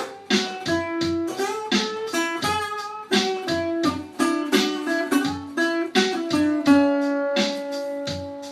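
Instrumental music: a plucked guitar plays a quick melody of short notes over a regular low beat, settling onto a longer held note near the end.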